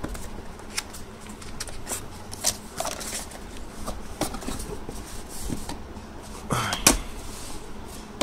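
Hands handling a cardboard phone box and its paper insert: light rustles, scrapes and small clicks, with one sharper tap about seven seconds in.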